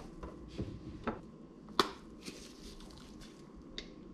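Kitchen items being handled on a countertop: a few soft knocks and one sharp click a little under two seconds in.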